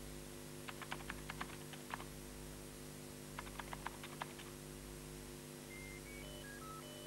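Computer keyboard typing sound effects in an advertisement, two short runs of clicks, followed near the end by a string of short electronic beeps at changing pitches. A steady mains hum runs underneath.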